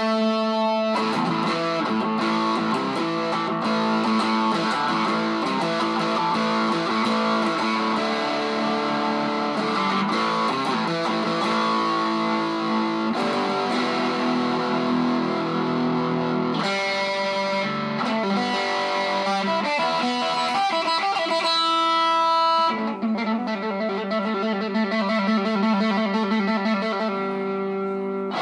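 Squier Telecaster electric guitar played through a Fender Champion 50XL amplifier, a run of ringing notes and chords with a little overdrive.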